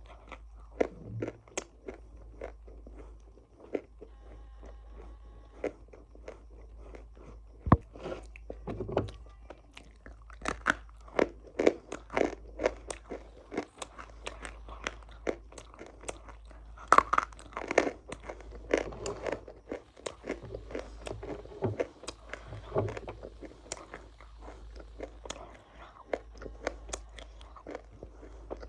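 A person biting and chewing crunchy food close to the microphone: irregular sharp crunches, sometimes several a second, the loudest about eight and seventeen seconds in.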